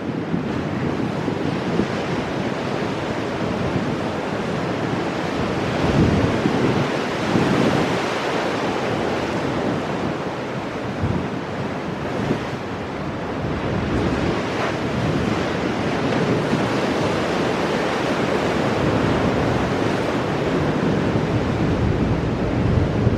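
Ocean surf breaking and washing over shoreline rocks, a steady rush with swells that surge louder a quarter of the way in and again near the middle. Wind noise buffets the microphone.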